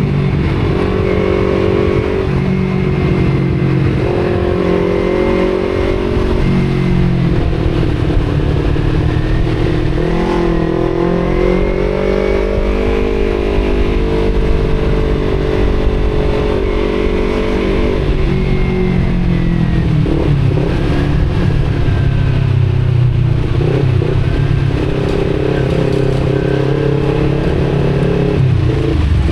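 Kawasaki Z250's parallel-twin engine running through an Akrapovic exhaust while riding. The engine note rises and falls with the throttle, climbing about a third of the way in and dropping back a little past halfway.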